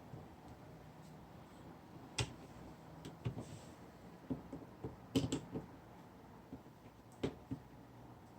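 Irregular light clicks and taps of small plastic and metal laptop parts being handled during screen reassembly, about a dozen spread out, a quick cluster about five seconds in.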